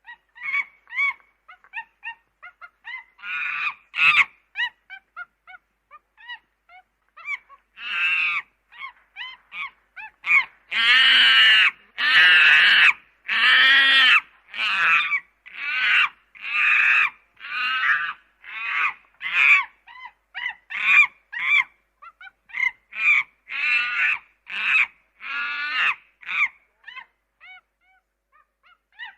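Monkey calling over and over: short squeaky calls at first, building to a few long, loud screeching calls about a third of the way in, then a steady run of calls about one a second that thin out near the end.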